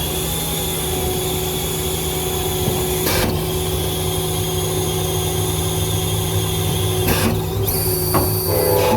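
Ford 6.4 L Power Stroke V8 turbo-diesel idling steadily, with a steady high-pitched whine over the engine note. Two brief noises come about three and seven seconds in.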